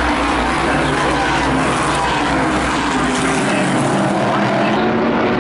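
Modified race car engines running on the track: a loud, steady engine drone.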